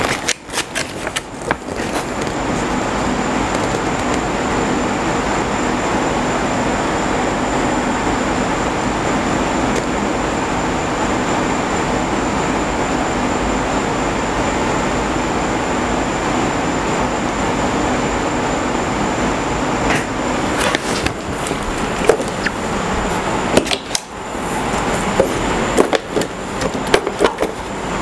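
Loud steady rushing noise with a faint low hum and a faint high whine, like a running fan or similar machine. From about two thirds of the way in, scattered clicks and knocks of parts being handled.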